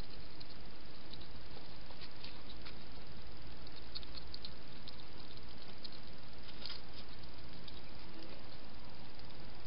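A hedgehog chewing its food: faint, irregular crunching clicks over the steady hiss of the trail camera's microphone.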